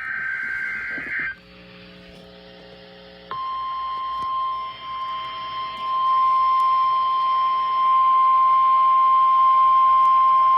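NOAA Weather Radio Emergency Alert System broadcast. It opens with a burst of SAME header data tones lasting about a second, then a pause of about two seconds. About three seconds in, the steady 1050 Hz warning alarm tone begins and holds, growing louder partway through, signalling that an alert is about to be read.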